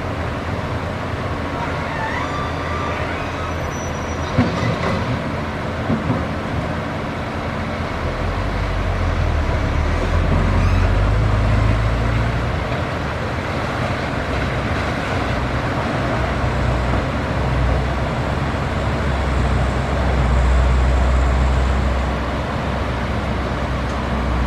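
Caterpillar excavator's diesel engine running steadily as it works, with a couple of sharp knocks early on. About a third of the way through, its low rumble grows louder.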